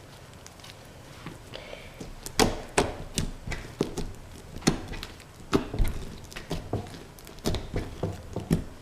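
Hands playing with a stretchy clear-glue slime full of foam beads: after about two seconds of near quiet, it gives a string of irregular sticky pops and clicks as it is stretched and squished.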